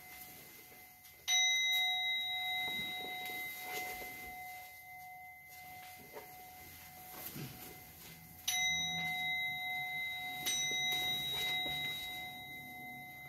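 Buddhist bowl bell struck three times with a mallet, each strike ringing on in a long, slowly fading tone: once near the start, then twice about two seconds apart near the end. The strokes mark the bows of the prostrations.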